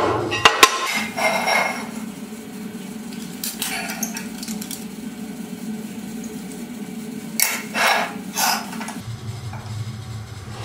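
Steel pieces clanking on a steel workbench: a few sharp knocks in the first second, then quieter metal clicks and scrapes a little over halfway through as a small scribe tool is fitted onto a steel bar.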